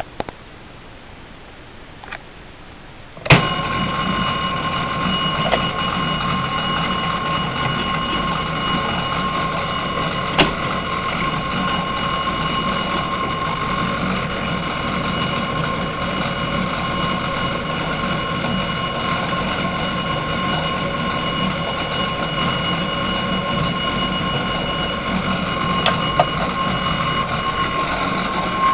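A Faraday arrow-handle fire alarm pull station is pulled with a sharp snap about three seconds in. A Simplex 2902-9207 fire alarm chime then sounds, a loud, steady, unbroken ring at an unchanging pitch.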